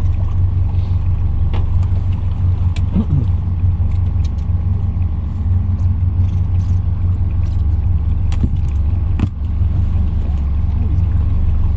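Boat's outboard motor running steadily at low speed, a constant low drone, with a few light knocks.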